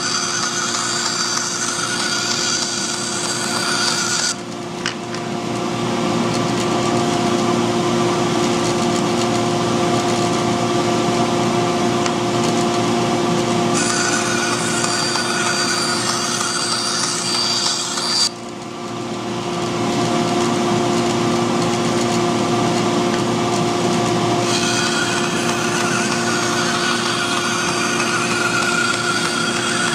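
Bandsaw running with a steady motor hum while its blade cuts through thin hardboard with a paper pattern glued on. The higher hiss of the cut drops away twice for several seconds, leaving only the hum, and then comes back.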